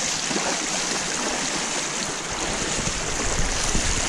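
Shallow river rushing over rocks, with splashes from wading steps in the water.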